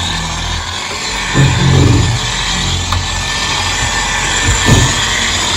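Corded dual-action polisher running at a low speed setting, spreading wax over a boat's fiberglass gunwale. Its motor drone swells briefly about a second and a half in and again near the end.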